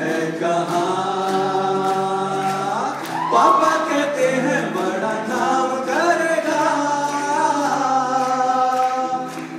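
Live amplified singing: male voices holding long sustained notes together through microphones, the pitch moving to new held notes about three and six seconds in, with guitar accompaniment.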